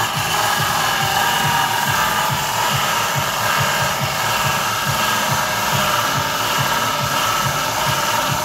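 Power grinder running steadily against an original Nissan Patrol suspension-arm bushing, taking about 1.5 mm off it so that it will slide in loosely.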